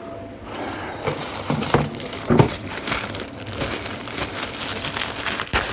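Irregular crinkling and rustling of packaging, with many short crackles, starting about half a second in, as the dishwasher's instruction booklet is taken out and handled.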